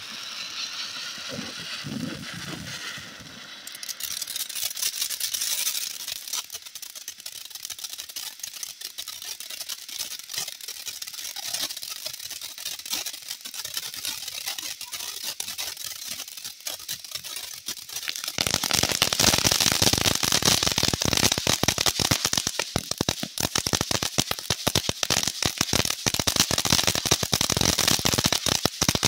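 Winda Koi Pond fountain firework burning with a steady hiss of spraying sparks. About eighteen seconds in, it suddenly turns much louder into a dense crackling of many sharp pops, the crackling spark bursts of the fountain's finale.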